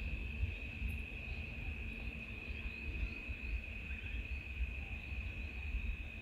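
Insects calling outdoors: one steady, unbroken high-pitched trill, under a fluctuating low rumble on the microphone.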